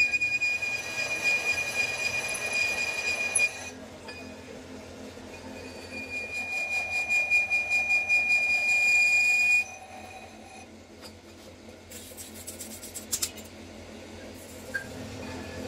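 Lathe cutting tool squealing steadily as it machines the bore of a cast truck wheel hub; the squeal cuts off abruptly about three and a half seconds in. After a quieter stretch of the lathe running, a second squealing cut starts about six seconds in and stops suddenly near ten seconds, followed by a few light clicks.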